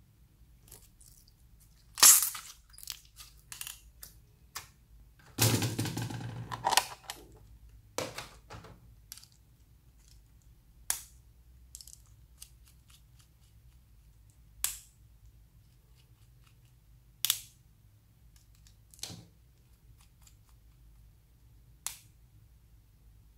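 Sharp plastic clicks and snaps from gel pens being pulled apart by hand, one every few seconds. About five seconds in comes a denser stretch of crackling handling noise lasting over a second.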